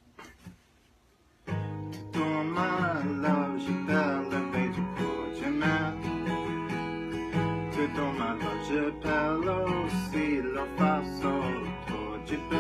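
Background music: an acoustic guitar song starts suddenly about a second and a half in, after near silence, with a melody weaving over steady strummed chords.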